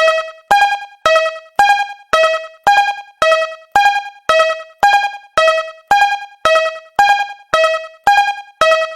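Japanese railroad crossing warning bell ringing, an electronic two-tone ding alternating between a higher and a lower pitch at about two strikes a second, steady and even.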